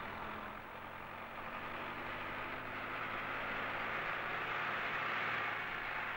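Tractor engine running steadily, with a low hum under a rougher noise that grows louder over the second half.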